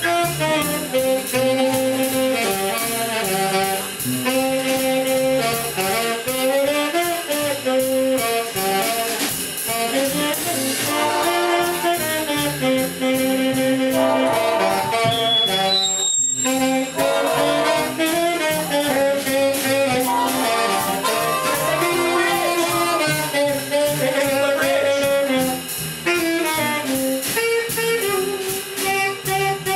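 Small big band playing jazz live: saxophones and brass play the melody in sustained, moving lines over upright bass and drums.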